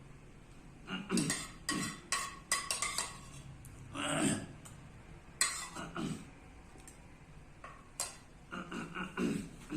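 A person clearing their throat over and over in short, harsh fits, several clusters a few seconds apart: a throat-clearing vocal tic of Tourette syndrome.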